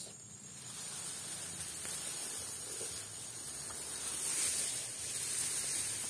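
Rice plants rustling and brushing against the body and camera as someone pushes through a paddy, over a steady high hiss.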